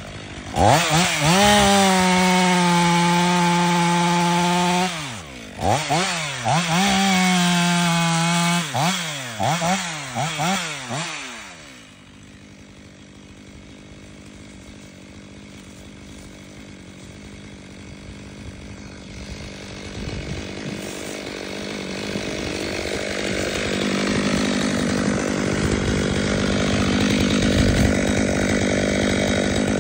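Two-stroke chainsaw running at full throttle, cutting into the base of a tree trunk. A few seconds in it revs up and down in a string of short throttle blips, then drops off about 12 seconds in. A quieter steady hum follows and grows louder toward the end.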